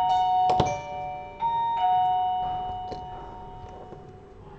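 Electronic two-tone doorbell chime, ding-dong: a higher note then a lower one, each ringing out and fading slowly, sounding a second time about a second and a half in. A sharp knock about half a second in.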